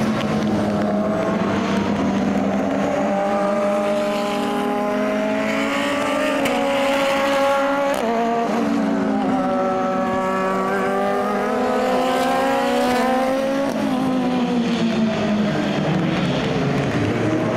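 Super GT race cars driving past on a wet circuit. Their engine notes climb in pitch, shift abruptly about eight seconds in, climb again and drop near the end, over a steady hiss of rain and tyre spray.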